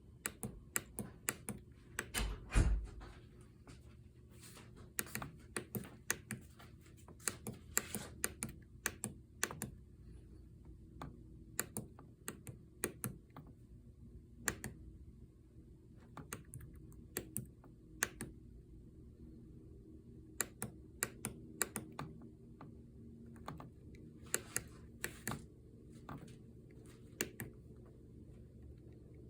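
A key being pressed and released over and over in quick, irregular groups of clicks, tapping out Morse code. One heavier thump comes about two and a half seconds in, and a steady low hum runs underneath.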